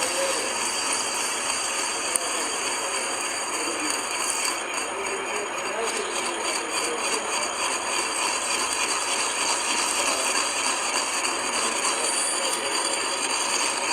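Metal lathe running during tool work: a steady, dense mechanical rattle, with a single sharp click about two seconds in.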